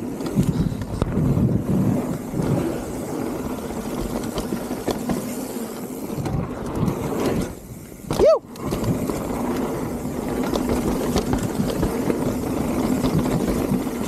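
Mountain bike descending a dirt trail: knobby tyres rolling and rattling over the ground with steady wind rush on the helmet camera. About eight seconds in the noise drops briefly, then a sharp loud thud.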